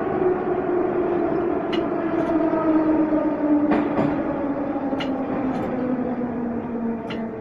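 Metro train slowing into a station: the motor whine is a stack of tones falling steadily in pitch as the train brakes, over running noise, with a few short sharp clicks.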